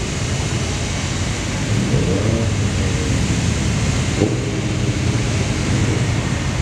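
Two street cars, an older Honda Civic sedan and an Acura RSX, idling at a drag strip starting line: a steady low engine rumble under a constant rushing noise.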